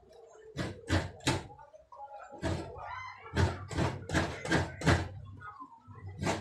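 Coconut being grated by hand: quick runs of scraping strokes, about three a second, pausing briefly near the middle.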